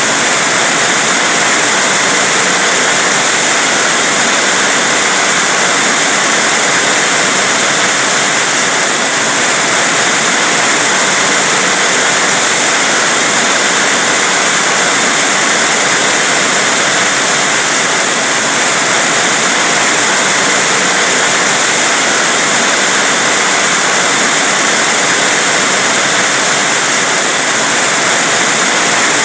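Heavy rain falling in a loud, steady hiss with no breaks.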